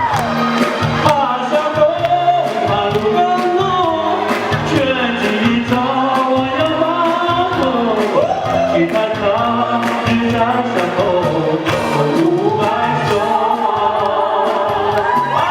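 Song sung over an instrumental backing track, a wavering vocal melody above a steady repeating bass line.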